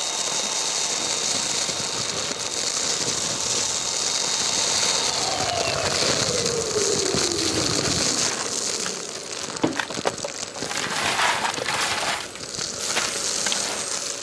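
Kärcher wet-and-dry vacuum running with its bulk waste kit, sucking up loose debris that crunches and rattles through the hose. Its pitch slides down partway through, and the steady hiss gives way to scattered clicks and crackles before the motor noise returns near the end.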